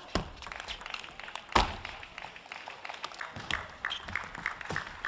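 Table tennis rally: the celluloid ball clicking sharply off the rackets and the table, the loudest hit about one and a half seconds in. Some clapping starts near the end as the point is won.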